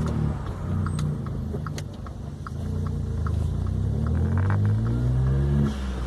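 VW Up TSI's turbocharged 1.0 three-cylinder engine pulling under moderate throttle, its note climbing steadily for a few seconds, then dropping suddenly near the end as the throttle closes, with a short hiss from the blow-off valve venting boost.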